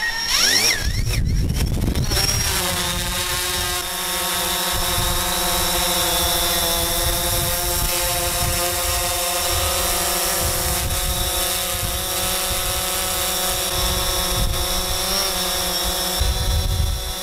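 DJI Phantom quadcopter drone taking off: its motors spin up in a rising whine over the first couple of seconds, then settle into a steady multi-tone propeller buzz as it hovers, with a gusty low rumble underneath.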